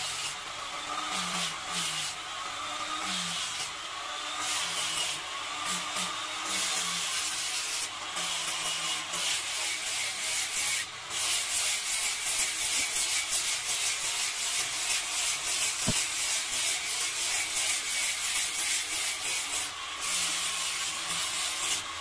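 Electric angle grinder with a sanding disc grinding down kemuning wood, a continuous abrasive hiss. In the first half a low motor tone falls in pitch again and again, and the hiss briefly drops out a few times.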